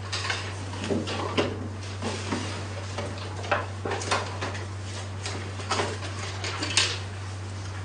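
Scattered small clicks, knocks and rustles as a class of students at their desks handle paper and writing things to start a writing exercise, over a steady low electrical hum.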